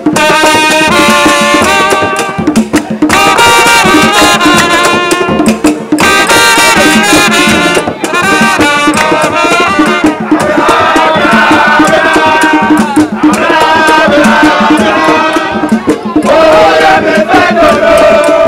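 Traditional hand drumming, played with bare hands, under a group of men singing and chanting along, with clapping.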